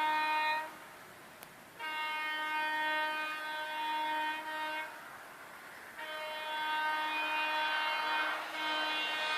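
Indian Railways train horn sounding in long steady blasts: the end of one blast, then a blast of about three seconds, then another long blast that breaks briefly near the end and resumes.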